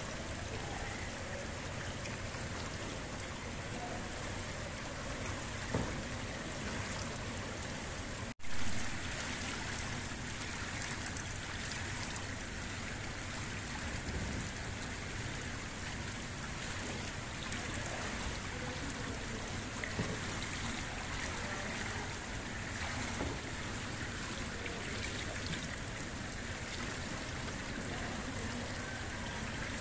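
Steady rushing and trickling water noise of an indoor swimming pool hall, with a few faint short sounds now and then. It cuts out for an instant about eight seconds in.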